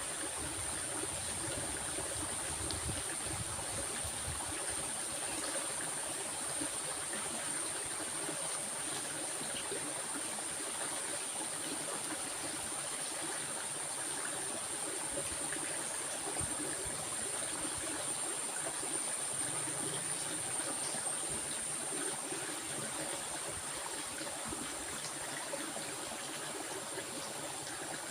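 A stream flowing and trickling steadily, with a steady high-pitched tone sounding above the water.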